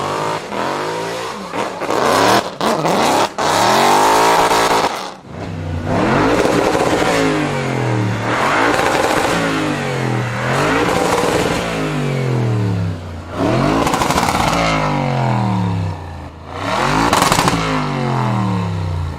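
High-revving supercar engines in a series of about six loud surges, the pitch falling through each one.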